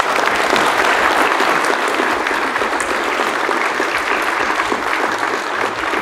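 Audience applauding, many people clapping steadily, starting right after a speaker's closing "thank you".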